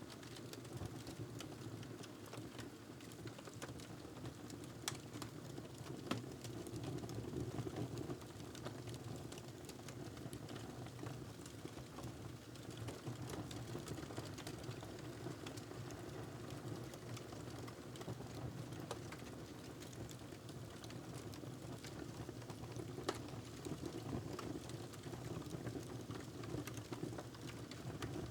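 Wood fire crackling in a fireplace: a steady low rumble of burning with frequent small ticks and a few sharper pops.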